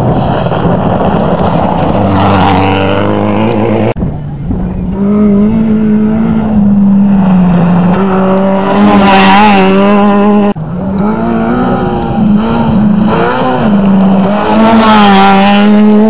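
Rally cars at full speed on a gravel stage, engines revving hard, with the engine pitch climbing steeply twice as a car accelerates past.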